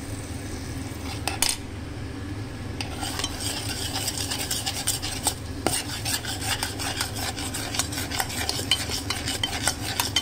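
A metal spoon stirring thick ground green-pea paste in a stainless-steel pot, with a quick run of clicks and scrapes against the pot from about three seconds in.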